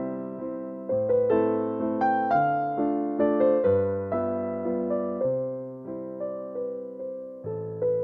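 Background piano music: slow chords and melody notes, each struck and left to fade.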